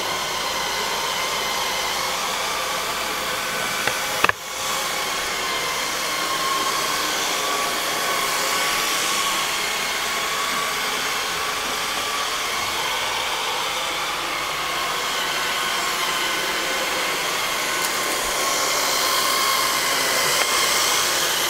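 Robot vacuum cleaner running on carpet: a steady motor whine over brush and suction noise, with one sharp click about four seconds in.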